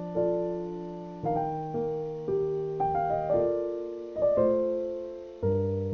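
Solo piano music: chords struck one after another, each left to fade.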